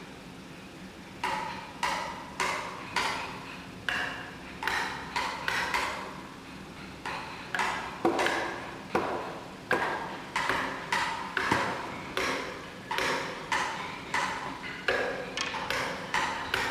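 Hammer strikes in a steady working rhythm, about one to two a second with brief pauses, each blow giving a short ringing tone.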